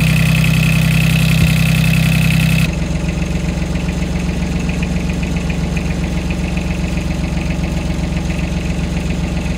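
Mini excavator engine idling steadily while its repaired charging wiring is tested under running. About three seconds in, the sound changes abruptly and becomes a little quieter and duller.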